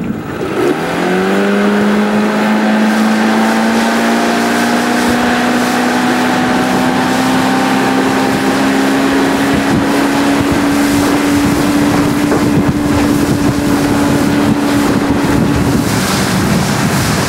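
Boat outboard motor opening up from idle about half a second in, its pitch climbing quickly and then rising slowly as it pulls water skiers up and along. Wind on the microphone and rushing water run beneath it. The engine note drops away near the end, leaving mostly wind and water.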